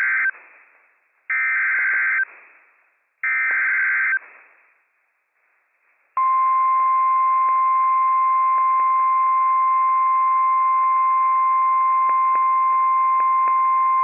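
NOAA Weather Radio Emergency Alert System tones heard through a radio receiver, with hiss. First come the SAME header's short bursts of digital data: the end of one burst and two more, each about a second long. About two seconds after the last burst, the steady 1050 Hz warning alarm tone starts and holds for about nine seconds. The sequence marks the activation of a Flash Flood Warning alert.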